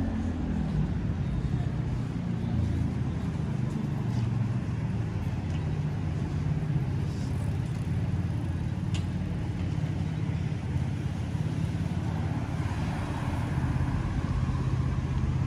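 Road traffic: the steady low hum of car engines running close by, over constant city street noise.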